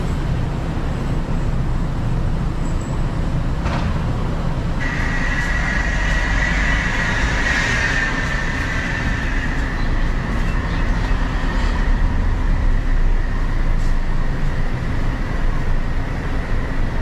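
City street traffic noise: a steady low rumble of vehicles, with a thin high whine coming in about five seconds in and holding on.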